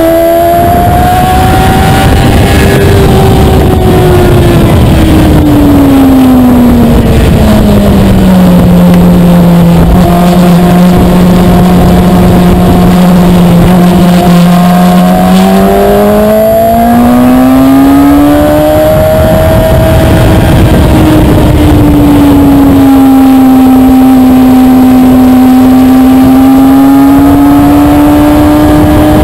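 2013 Kawasaki ZX-6R 636's inline-four engine running at speed, with wind rushing over the bike. Its pitch falls over several seconds as the bike slows for a corner, holds low for about six seconds, then rises as it accelerates out, with a shallower dip and climb near the end.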